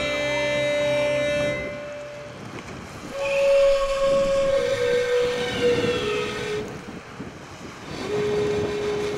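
Fur seals calling: a long, breathy, drawn-out wail about three seconds in that steps down in pitch, then a shorter steady call near the end.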